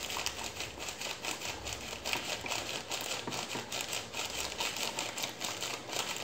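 Plastic gelatin-powder sachet crinkling continuously as it is squeezed and shaken empty over a bowl, with light clicking of a spoon stirring the powder into milk in a plastic bowl.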